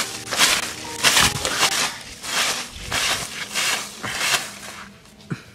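Plastic water bottle crinkling as it is handled, a run of crackly rustles about twice a second that die away near the end.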